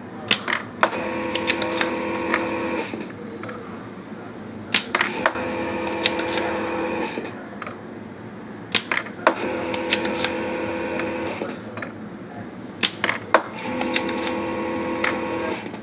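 Small electric desoldering tool working on the pins of a circuit board's tactile switches: four times, a few sharp clicks and then a steady hum for about two seconds.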